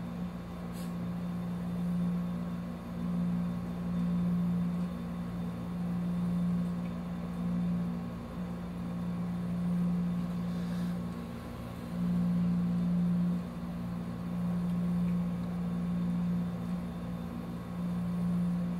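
A steady low machine hum, slowly swelling and fading in level.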